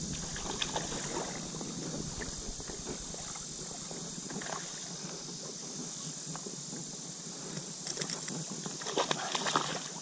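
Creek water sloshing and splashing around a wading angler and a hooked smallmouth bass being reeled in, over a steady high hiss. A few louder splashes come near the end.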